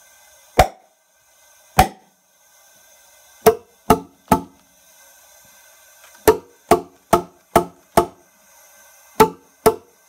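A dozen sharp metallic taps on a diesel engine held under leak-down air pressure on one cylinder, struck in small groups: two single taps, then three quick ones, then five, then two. The tapping makes the leak-down gauge pressure drop.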